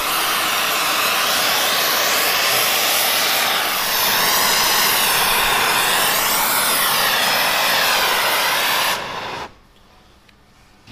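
Oxy-fuel torch flame hissing steadily while brazing a cast iron pump housing, then shut off in two quick steps about nine seconds in.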